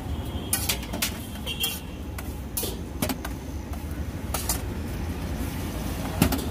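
A slotted steel spatula scraping and clinking against a large flat iron griddle (tawa) as chapatis are flipped, several short sharp strokes spread out, the loudest near the end. Under it is a steady low rumble.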